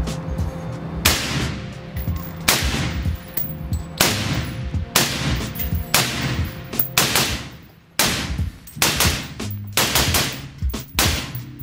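Foxtrot Mike FM-15 Gen 2 AR-15-pattern rifle firing a string of about a dozen semi-automatic shots at an uneven pace, several in quick pairs in the second half. Each shot rings briefly in the range.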